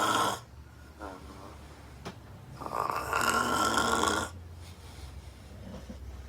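A woman snoring extremely loud in her sleep: the end of one snore, a soft breath out, then a long snore of nearly two seconds, repeating about every three and a half seconds.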